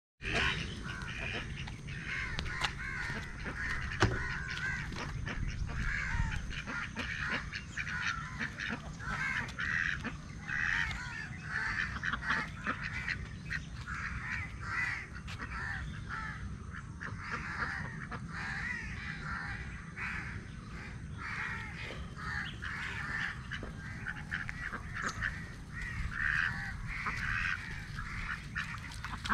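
A small flock of domestic ducks quacking again and again, with other birds calling behind them.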